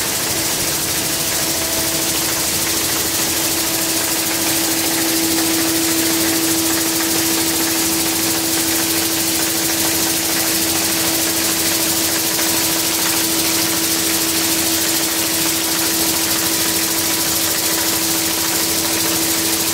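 Jeepine rotary bottle-cap compression moulding machine running: a steady hum under a constant hiss, with no change throughout.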